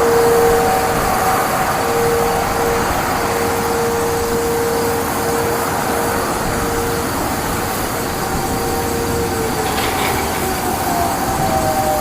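Sentry 15V2T-B two-tone outdoor warning siren sounding two steady tones over a steady noisy background. The lower tone drops out and returns unevenly. Near the end both tones wind down, falling in pitch. The unit is the one billed as failing.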